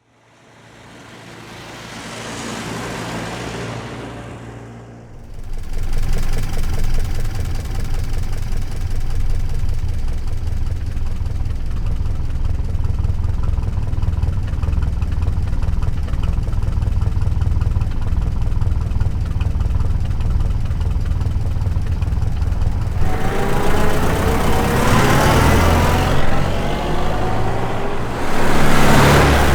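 A 1927 Chevrolet roadster's four-cylinder 2.8-litre engine: after a whir that swells and fades, it catches about five seconds in and runs steadily at low speed. Near the end it is revved up twice, its pitch rising.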